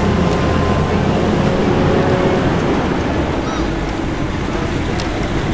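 Engine of a six-wheeled WWII armoured car running steadily as it drives slowly across a grass field, a low steady drone.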